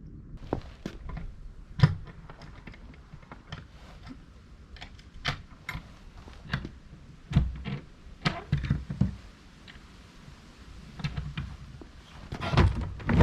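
Irregular clatter of light clicks and knocks, a couple of dozen spread unevenly, with a few louder ones about two, eight and twelve and a half seconds in, over a faint low rumble.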